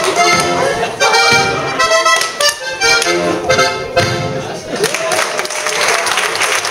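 Accordion playing a lively Schuhplattler dance tune in short, clipped chords, with the dancers' slaps and stomps on the beat. The music stops about four and a half seconds in and the audience breaks into applause.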